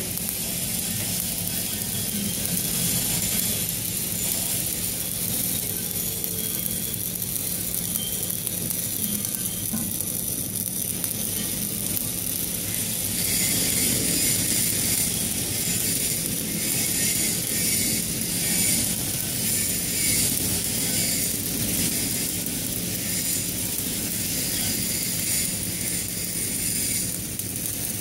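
Electric welding arc crackling steadily as a bead is laid on a steel pipe, a little louder from about halfway.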